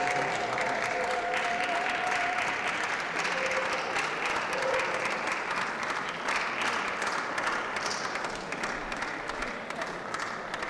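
Audience applauding, a steady patter of many hands clapping that slowly dies down toward the end.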